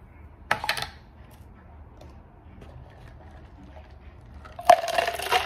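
Lemonade with ice and berries being poured from a jar into a clear plastic cup: a sudden splash and rattle of ice starts near the end and keeps running. About half a second in, there is a short clatter of clicks.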